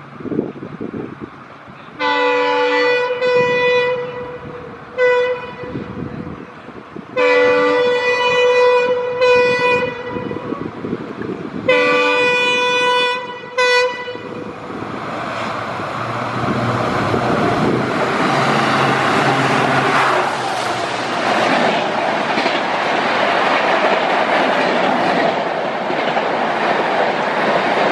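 WDP-4D (EMD GT46PAC) diesel locomotive's horn sounding a string of long and short blasts, about six in all. Then comes the loud rush of the express train passing at over 110 km/h, which builds and stays loud to the end.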